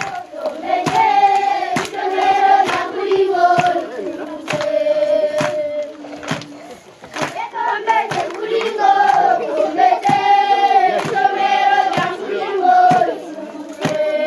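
A large group of young children singing a song together, with hand claps keeping the beat. The singing breaks off briefly about six seconds in, then resumes.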